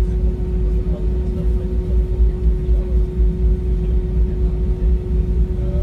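Jet airliner engines heard from inside the passenger cabin: a steady low rumble with a constant hum over it.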